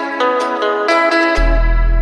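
Background music: a run of quick plucked-string notes, joined about one and a half seconds in by a deep held bass note.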